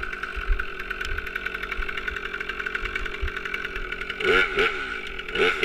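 Stihl MS 362 two-stroke chainsaw running steadily at high revs, then twice near the end dropping and recovering in pitch with a louder rasp as it loads up in the cut.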